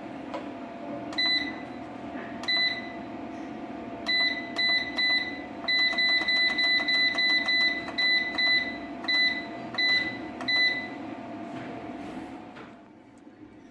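Sunon Plus MPPT solar inverter's keypad beeping once for each button press: about twenty short, identical high beeps, a few spaced out at first and then in quick runs, stopping near the end. A steady hum runs underneath.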